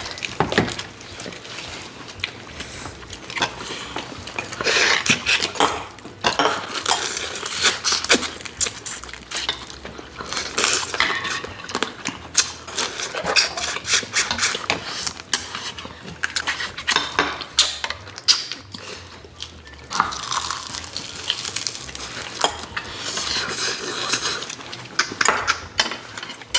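People eating soy-marinated raw crab: chewing and eating noises close to the microphone, with cutlery clinking against dishes and bowls in quick irregular clicks.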